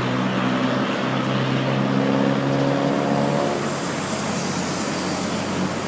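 A motor vehicle running with a steady, even-pitched hum; about three and a half seconds in the hum fades and a steady rushing noise takes over.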